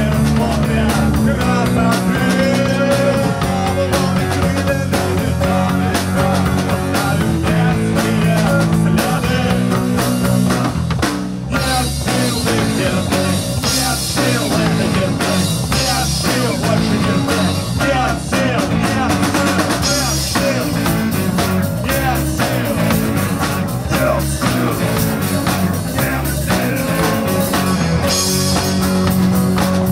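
A rock band playing live: drum kit, bass guitar, electric guitar and acoustic guitar together with a steady beat.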